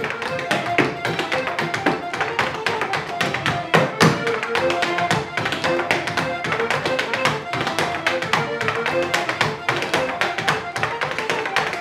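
A sean-nós dancer's shoes beat out rapid steps on the floor over a button accordion playing a tune, with a bodhrán.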